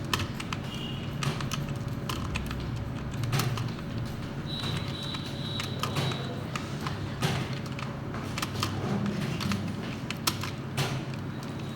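Someone typing steadily on a computer keyboard, a continuous run of irregular keystrokes, with a steady low hum underneath.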